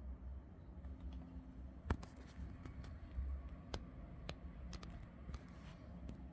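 Scattered sharp clicks of a Dell Latitude 7480 laptop's keys and touchpad buttons being pressed, about seven at uneven intervals, the loudest about two seconds in, over a low steady hum.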